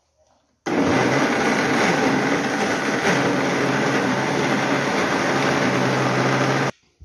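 Mondial countertop blender switching on about a second in and running at a steady pitch for about six seconds, blending a thick raw-pumpkin batter, then switching off suddenly.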